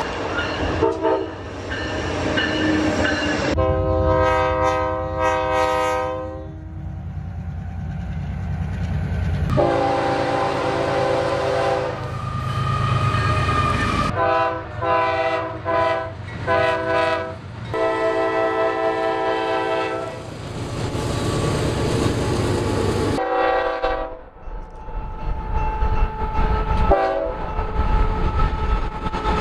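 A string of diesel locomotive air horns from several passing freight trains, cut one after another: chords held for a few seconds, then a run of short blasts near the middle. Underneath runs the low rumble and rail clatter of the moving trains.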